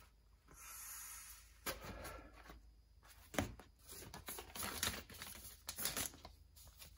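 Thin vinyl of an inflatable pool crinkling and rustling as it is handled, in a run of short, irregular crackles, with a paper instruction leaflet rustling near the end.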